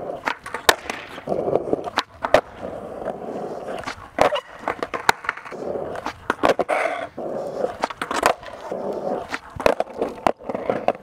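Skateboard rolling on smooth concrete flat ground, the wheels giving a steady rumble, broken by repeated sharp clacks of the tail popping and the board landing as flat-ground tricks are tried.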